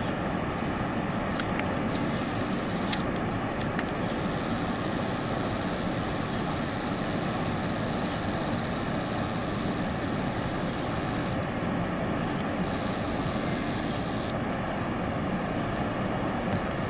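Steady roar of the American Falls at Niagara, water pouring over the brink.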